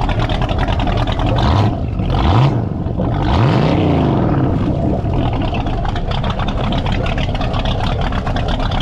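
Inboard engine of a classic mahogany runabout idling with a steady pulsing beat through its wet exhaust outlets at the transom, revved up twice about two and four seconds in before settling back to idle.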